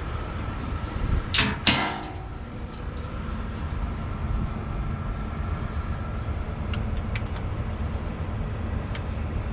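Truck engine running steadily. About a second and a half in there are two loud, sharp knocks close together, followed later by a few faint clicks.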